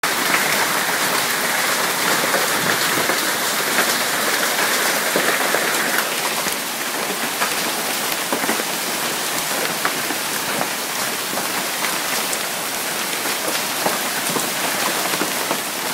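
Hailstorm: hailstones and heavy rain striking paving, decking and lawn, a dense steady patter with many separate sharp hits throughout. It is a little louder over the first six seconds.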